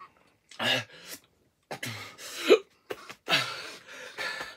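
A young man coughing and gasping for breath in three bouts, his throat burning after eating an extremely hot pepper chip; he has the hiccups.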